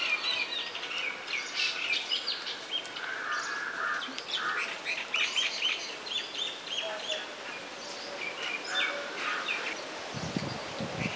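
Birds chirping and calling repeatedly in short notes, with a few lower calls among them. A few low rustles come near the end.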